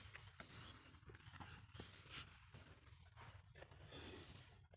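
Near silence: a faint low background hum with scattered soft rustles.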